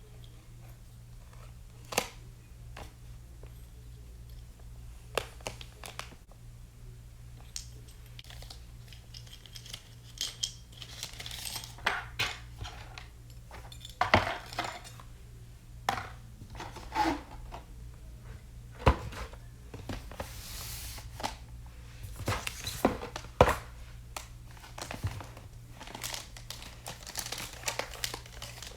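Keyboard packaging being handled and opened: crinkling and tearing of wrapping with scattered sharp taps and knocks, busier in the second half, over a faint low hum.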